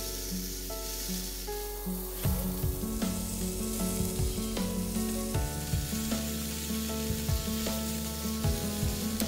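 Sweet Palermo peppers sizzling in a hot cast-iron grill pan, a steady hiss, under background music whose drum beat comes in about two seconds in.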